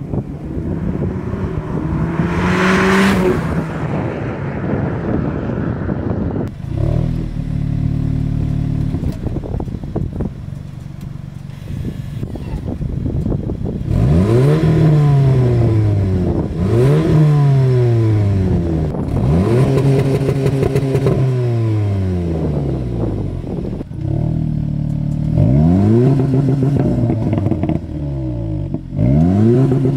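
2015 Audi S3's turbocharged four-cylinder engine and exhaust, stage 1 tuned. A rising rev comes about 2 s in. Through the second half the revs jump up sharply and fall back about five times.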